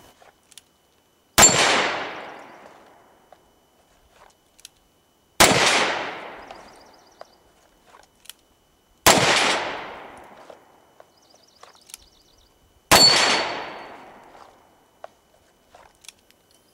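Four single shots from a Ruger Vaquero single-action revolver, about four seconds apart, each a sharp crack with the ring of a steel knockdown plate and an echo that dies away over about a second and a half. Faint clicks between shots.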